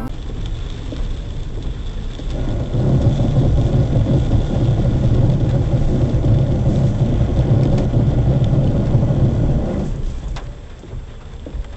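Vehicle noise on a wet road heard through a dashcam: a steady low rumble with road hiss. It grows loud about two seconds in and falls away about ten seconds in.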